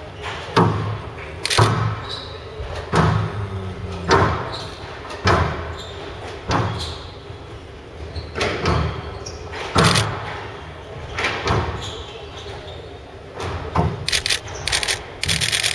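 Squash rally: the ball cracks off racket strings and the walls in a steady exchange of about one shot a second, echoing in a large hall. Near the end come bursts of short, high shoe squeaks on the court floor.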